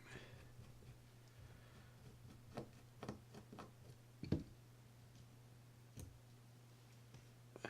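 Faint clicks and light knocks of a small screwdriver and metal parts as the palm-side faceplate screw of a Shimano Citica 200D baitcasting reel is taken out. There is a cluster of clicks from about two and a half to three and a half seconds in, the loudest knock just after four seconds, and one more click near six seconds. A low steady hum runs underneath.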